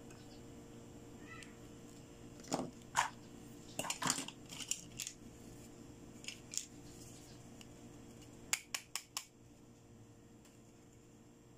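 Small hard plastic toy pieces being handled, clicking and tapping against each other: a cluster of clicks about two to five seconds in, two more around six seconds, and four quick taps in a row near nine seconds.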